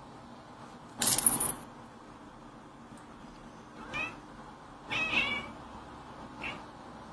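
British Shorthair cat meowing three times, short calls at about four, five and six and a half seconds in, the middle one the longest and loudest. About a second in there is a brief, loud rattling noise, the loudest sound here.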